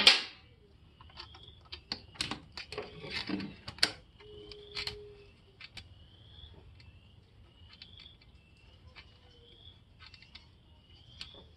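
Light clicks and taps of metal parts being handled as a dirt bike's exhaust silencer is fitted and its mounting screws started by hand, with a sharp knock right at the start. Behind it a faint, short, high chirp repeats about every second.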